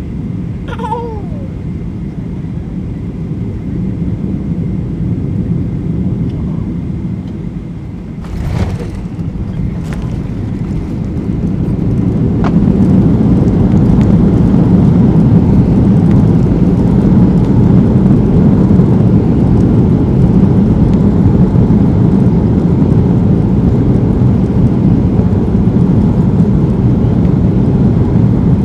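Cabin noise of a Boeing 737-800 on landing: a steady low rumble, a sharp thump about eight seconds in as the wheels touch the runway, a second smaller knock soon after, then the roar builds as its CFM56 engines spool up into reverse thrust and stays loud through the rollout.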